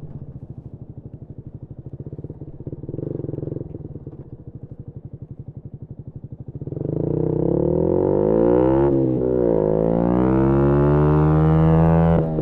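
2018 Yamaha MT-125's 125 cc single-cylinder engine through a GPR aftermarket exhaust, idling with an even pulse and a short blip of throttle about three seconds in. Then it pulls away hard, revs climbing, with a brief drop in pitch at a gear change and another near the end.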